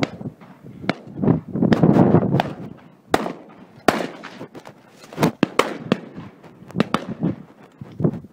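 A series of about a dozen sharp cracks and pops at irregular intervals, with a low rumbling gust between about one and three seconds in.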